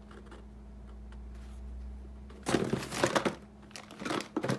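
Packing paper crinkling and rustling in quick uneven bursts as it is handled in an open box, starting about halfway in. A low steady hum sits underneath before the rustling starts.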